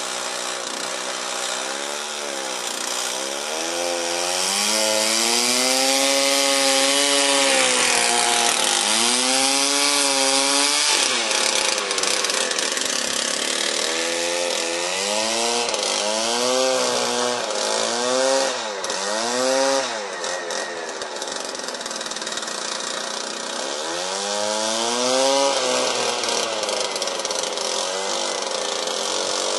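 Small engine of a lure-coursing machine revving up and dropping back in a series of surges, each a second or two long, over a steady rush of wind on the microphone.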